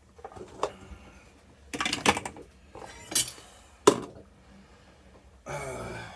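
Pots and dishes being handled and set down, a handful of separate clinks and knocks, the sharpest about four seconds in.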